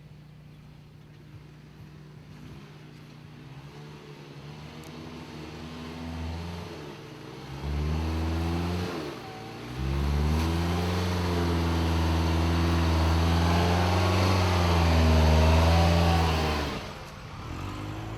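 The 2011 Mitsubishi Outlander XL's 2.4-litre four-cylinder engine, driving through its CVT, revs up under load. The revs drop briefly about nine seconds in, are then held high and fairly steady for about seven seconds, and fall back near the end.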